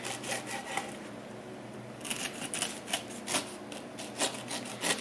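Kitchen knife slicing the rind off a whole pineapple on a wooden cutting board: a run of crisp crunching cuts, a short pause about a second in, then more cuts.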